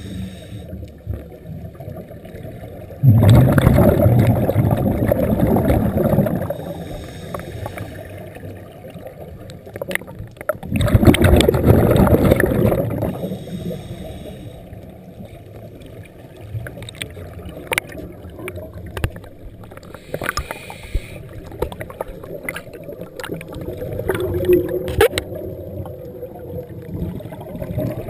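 Scuba diver exhaling through a regulator underwater: two long rushes of bubbles about eight seconds apart, with a weaker one near the end. Between breaths, a steady underwater hiss with faint scattered clicks.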